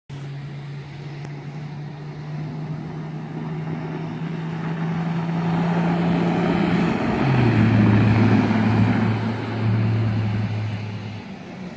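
Toyota 4Runner turbo diesel driving along a sand beach, its engine note growing louder as it comes on. About seven seconds in the note drops lower, and then it fades away, over a steady rush of wind-like noise.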